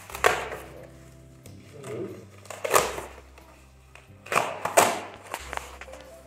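Several sharp knocks and rustles from handling parts and packaging, over soft background music with low bass notes.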